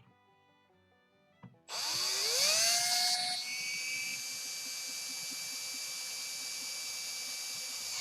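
Power drill starting about two seconds in, its whine rising in pitch as the motor spins up, then running at a steady speed.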